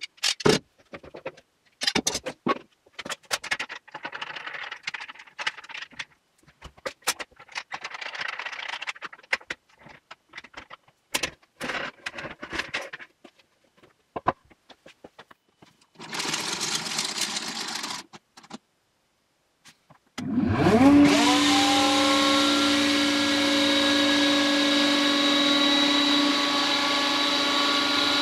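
Knocks and clatter as F-clamps are loosened and removed and a glued spruce panel is taken out of a clamping rack, then a brief hiss. After a short pause, the electric motor of a jointer-planer with dust extraction starts, its whine rising as it spins up, and then runs steadily at speed.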